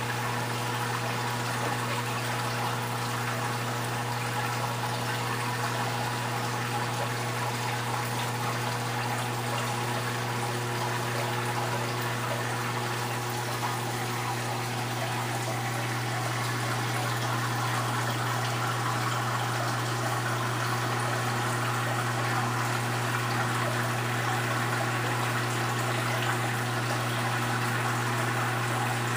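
Steady hum of an aquarium pump with bubbling, trickling water from the tank's rising stream of air bubbles.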